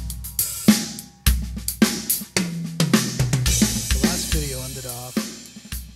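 A drum kit being played: kick drum thumps, snare hits and cymbals in a steady groove.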